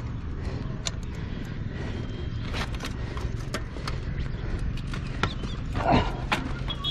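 Wind rumbling on the microphone during a bicycle ride, with scattered clicks and rattles throughout and a brief cry about six seconds in.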